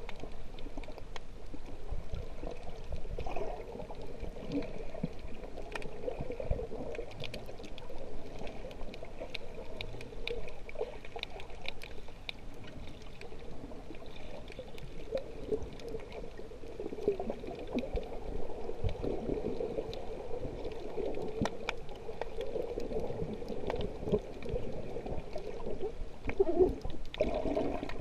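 Muffled underwater water noise picked up by a camera in a waterproof housing just below the surface: sloshing and gurgling, with many scattered faint sharp clicks.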